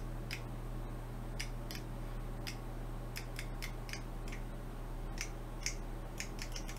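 Faint, irregular light clicks, a few a second, from the spring-loaded copper contacts of an old electronic-switch combination dial lock riding over its stacked dial wheels as the dial is turned. With all three wheels engaged, several contacts click at once, so true and false clicks mix together.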